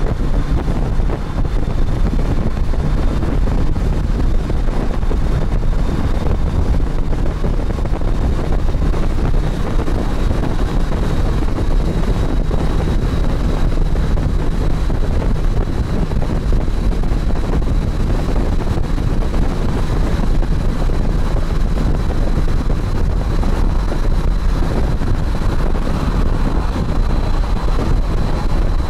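Wind buffeting the microphone over the steady running of a motorcycle on the move, with a faint high steady whine.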